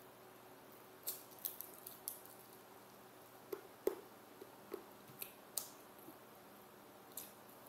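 Close-up eating sounds: mouth smacks and chewing clicks, with a plastic-gloved hand picking at food on a plate, as about nine short, sharp clicks scattered at irregular intervals.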